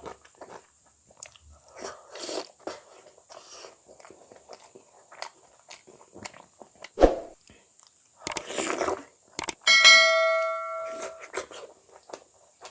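Close-up mouth sounds of a person eating egg curry: wet chewing and lip-smacking clicks. There is a sharp knock about seven seconds in, and near ten seconds a bell-like ring that fades out over a second or so.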